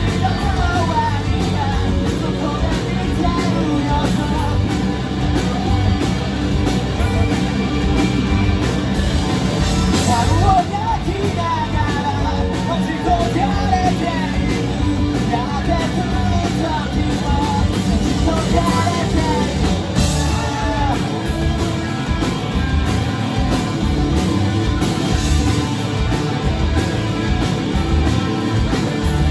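Live rock band playing: distorted electric guitars, bass and drums, with a man singing lead over them.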